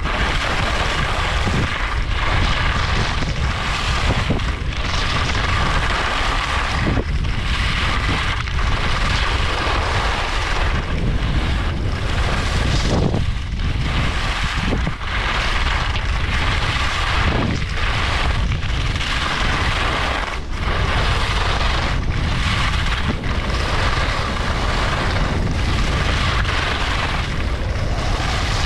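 Wind rushing over the microphone of a skier going downhill, with skis scraping over the snow. The noise swells and dips every one to two seconds as the skier turns.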